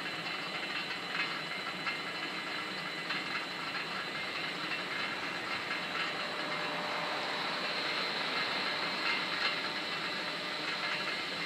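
Dutch automatic level crossing's warning bells ringing steadily with the barriers down, over a continuous hiss and rumble from an electric train near the crossing.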